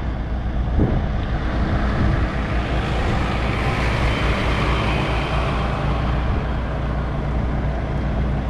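A diesel yard tractor drives slowly past the truck cab, its engine and tyre noise swelling to a peak about four seconds in and then fading, over a steady low diesel engine hum.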